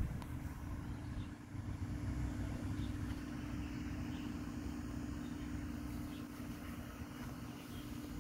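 Steady mechanical hum over a low, uneven rumble.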